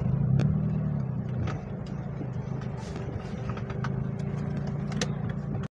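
Car engine running as the car drives slowly, heard from inside the cabin. A steady low hum swells briefly just after the start, with scattered light knocks and rattles.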